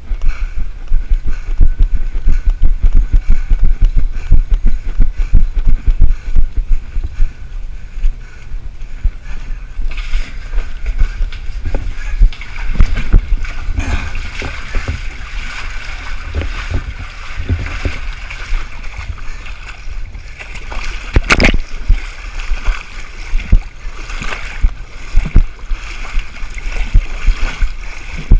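Wind and movement buffeting the microphone of a body-worn action camera during running and crawling, with rough thuds throughout and one sharp knock about two-thirds of the way through.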